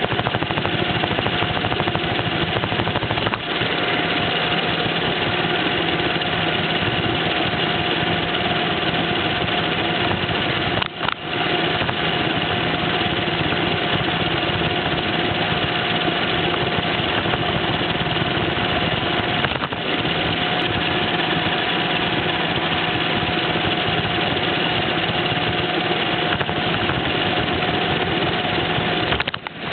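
Roomba robot vacuum running up close, its suction fan and brush motors giving a steady whine and hum, with a few brief dips.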